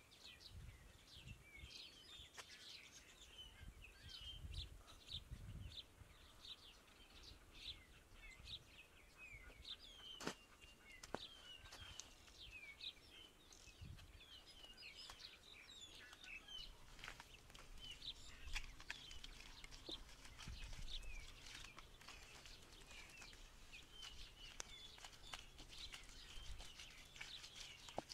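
Birds chirping almost without pause, many short quick high calls, over faint scattered knocks and a few low thuds from hands working mud onto the wall.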